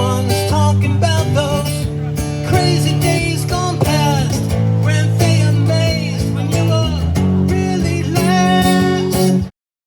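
Acoustic guitar music with a melodic lead line over held bass notes, cutting off suddenly near the end as the song stops.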